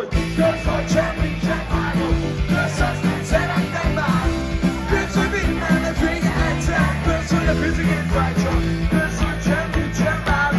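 Live rock band playing with a lead singer, recorded on a phone from within the concert crowd. The music cuts in abruptly at the start.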